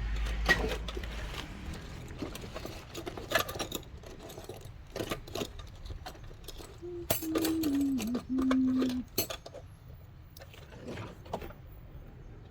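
A tool scraping and clicking on a phone's frame in short, irregular strokes, working off stubborn old adhesive. About seven seconds in comes a brief low hum that steps down in pitch.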